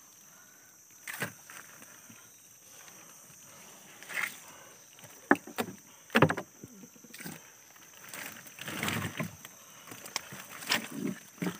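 Irregular clicks, knocks and rustling from a mesh net trap full of live giant freshwater prawns being handled, with a longer stretch of rustling about two-thirds of the way through.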